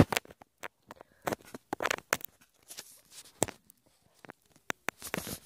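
Irregular soft clicks and rustles of a phone being handled close to its microphone.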